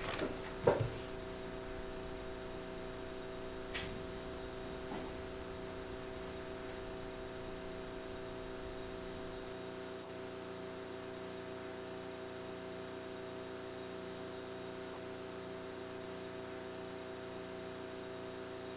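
Steady electrical hum made of several held tones, with a short knock about a second in and a faint click a few seconds later.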